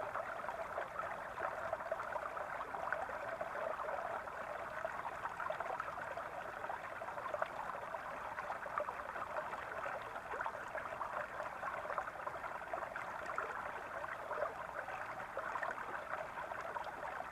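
Small brook flowing and gurgling steadily over stones, a continuous babbling trickle.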